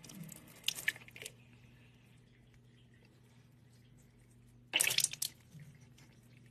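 Water splashing and dripping at a kitchen sink tap in two short bursts, one at the start and another about five seconds in.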